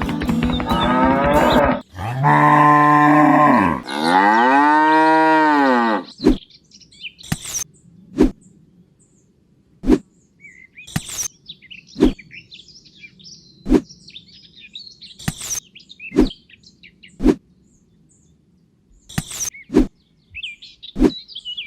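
A cow mooing twice, two long calls that each rise and fall in pitch, coming in over music. Then a series of sharp taps about every one and a half to two seconds, with faint bird chirps.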